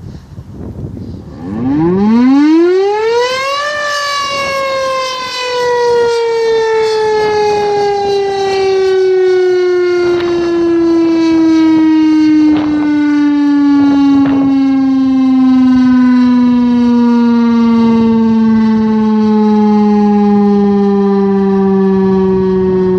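Federal Signal STH-10 mechanical tornado siren winding up, its wail climbing steeply to a peak within about two seconds. The pitch then falls slowly and steadily as the chopper winds down.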